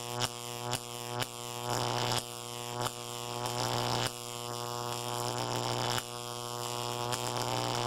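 Intro sound effect: a steady low electric buzzing drone with short sharp crackles, several in the first couple of seconds and fewer after.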